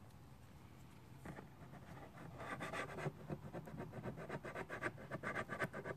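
Dried super glue being scraped off a plastic scooter body panel: quick, faint scratching strokes that begin about two seconds in and go on repeatedly.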